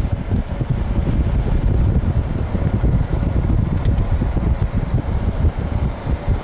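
Low, steady rumble of a moving vehicle on the road, with wind buffeting the microphone so the loudness flutters quickly.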